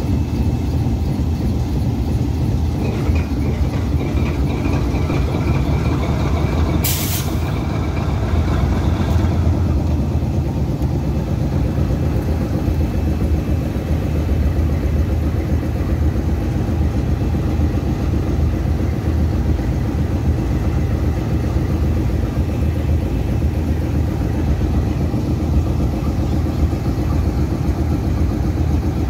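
GE U20C diesel-electric locomotives running, a steady low engine rumble. About seven seconds in there is one short burst of air hiss.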